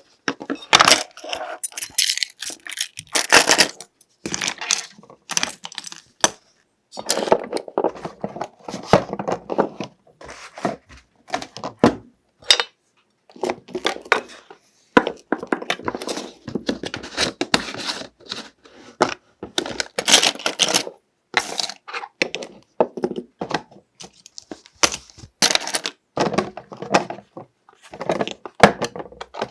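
Someone rummaging in a search: an irregular string of clatters, clinks, rustles and knocks from small objects being moved, in short bursts broken by brief silent pauses.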